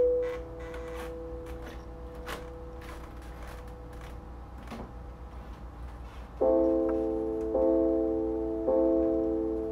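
Background keyboard music: a held chord with light ticks over it, then from about six seconds in a chord struck about once a second.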